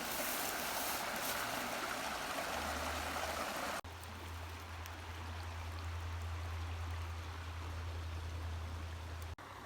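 Small creek water running and rushing over rocks, a steady even wash. About four seconds in the sound cuts abruptly to a quieter stretch of the stream with a low steady hum underneath.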